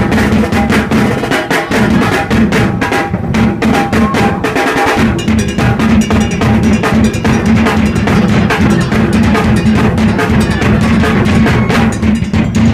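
Live drumming: fast, dense snare and bass drum beats played continuously.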